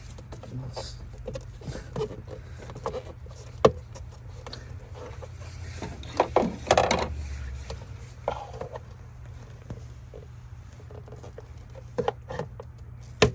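Scattered sharp plastic clicks, taps and scrapes as a screwdriver pries the small lines' squeeze-tab connectors off a plastic air filter housing. The loudest clicks come a few seconds in, in a cluster just past the middle, and again near the end.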